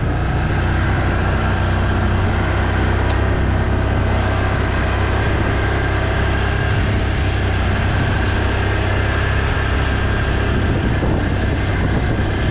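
ATV engine running steadily under load as the four-wheeler cuts water furrows through a wet field, a constant engine drone with no change in speed.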